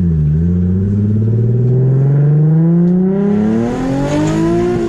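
Nissan Z car's V6 through a Tomei exhaust and ISR Y-pipe, accelerating hard at full throttle. The engine note climbs steadily in pitch for about four seconds, then drops sharply near the end as the driver upshifts.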